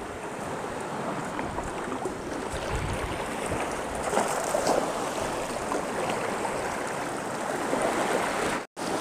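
Steady rushing wash of sea surf at the water's edge, with faint trickling and splashing, broken by a brief dropout near the end.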